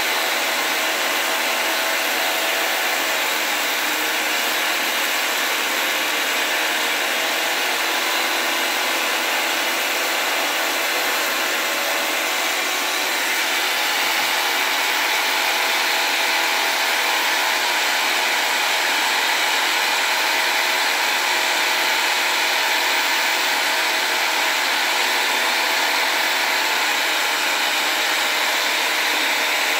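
Handheld electric power saw running steadily as its blade cuts into the metal casing of an electric motor being scrapped for its copper windings. The saw motor's whine wavers in pitch as the load changes, and it gets a little louder about halfway through.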